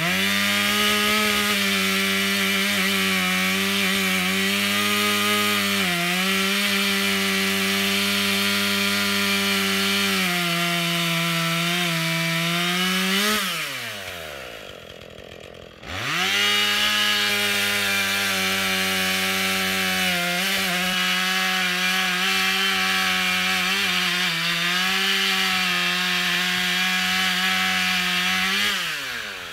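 Two-stroke chainsaw at full throttle cutting through a log, the engine note rising as it breaks through and falling back to idle about thirteen seconds in. It revs up again two seconds later for a second cut and drops back to idle near the end.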